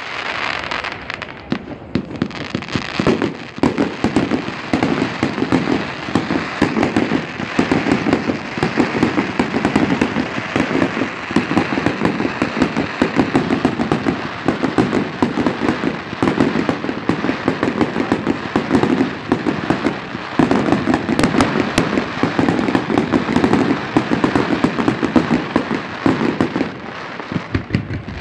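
Fireworks display at full barrage: a dense, continuous run of shell bursts, bangs and crackling, with a brief lull near the end.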